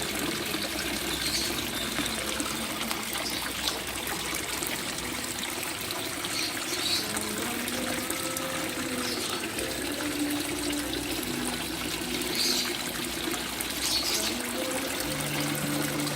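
Water trickling steadily, as from the circulation of a backyard fish pond or hydroponic system, with a few brief high-pitched chirps now and then.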